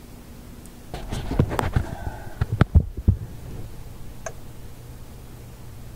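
A quick cluster of knocks and clicks from objects being handled and set down on a workbench, as a magnifier is brought into place, followed by a faint steady low hum.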